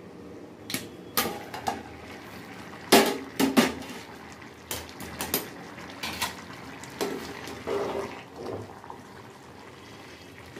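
Aluminium pot lid and a metal spoon clanking and scraping against a large aluminium cooking pot as the lid is lifted off and the rice stirred. It comes as a series of sharp metallic knocks, the loudest about three seconds in.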